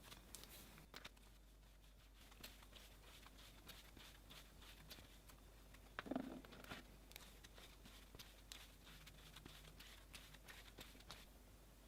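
Cloud slime being worked by hand, giving faint crackling clicks throughout, with one louder squish about six seconds in.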